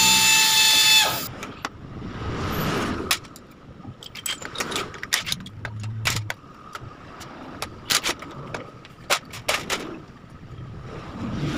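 A cordless power tool's motor whines at a steady pitch and cuts off about a second in. Then come scattered sharp metal clinks and knocks as tools and bolts are handled on the motorcycle engine.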